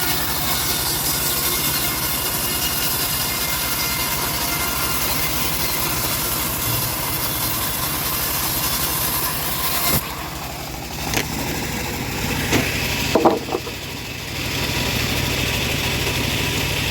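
Bandsaw running and cutting wood: a steady motor drone under a loud hiss. About ten seconds in, the hiss drops away for a few seconds, with a few short knocks, then the steady cutting sound resumes.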